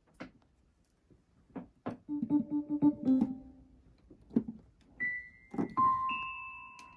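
Cat walking on a keyboard, its paws pressing random keys: scattered single notes with soft knocks of paws on the keys. About two seconds in comes a quick flurry of repeated low notes, and in the second half several high notes ring on and overlap.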